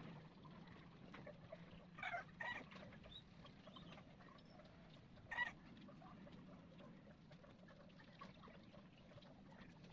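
Near silence with a low steady hum, broken by three short animal calls: two about two seconds in, half a second apart, and a louder one about five and a half seconds in.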